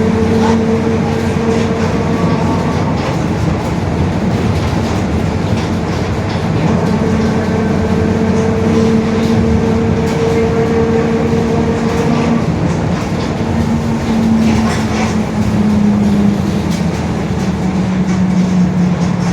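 Mercedes-Benz OF-1721 BlueTec 5 city bus under way, its differential droning with a steady humming whine over engine and road noise. The whine falls in pitch over the last several seconds.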